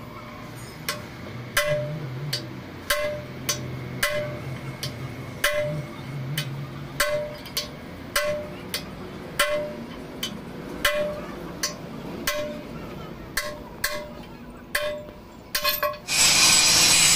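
Steady rhythm of sledgehammer blows on a steel truck axle housing and its clamp, about one and a half strikes a second, each blow ringing briefly. About a second before the end an angle grinder starts up and drowns them out.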